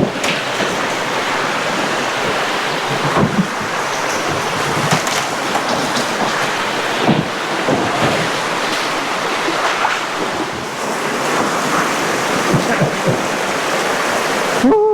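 Shallow river water rushing over rocks in a steady wash, with a few sharper splashes scattered through it.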